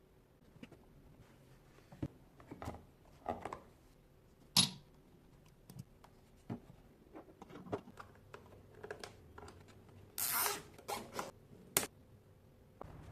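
Scattered light clicks and knocks of small hard objects being handled, with a sharper click about four and a half seconds in and a short rasping scrape about ten seconds in.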